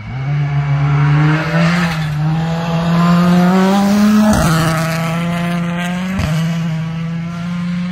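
M-Sport Ford Puma Rally1 car accelerating hard past on a gravel stage, its turbocharged 1.6-litre four-cylinder engine rising in pitch. It upshifts twice, about four and six seconds in, with a short sharp crack at each shift, then runs slightly quieter as it pulls away.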